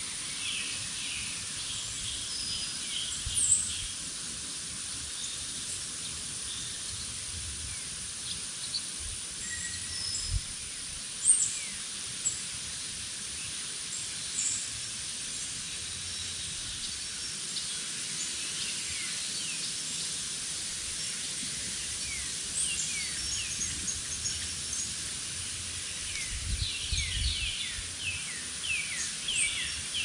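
Songbirds chirping and singing in short, scattered phrases over a steady high hiss, with a few soft low thumps. Near the end comes a quick run of down-slurred chirps.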